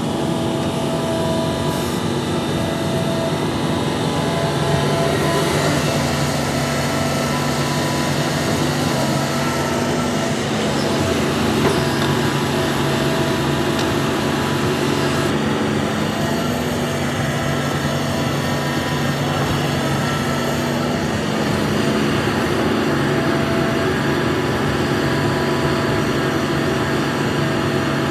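Hitachi ZAXIS 350H hydraulic excavator's diesel engine running steadily under working load, its note shifting a few times as the machine works.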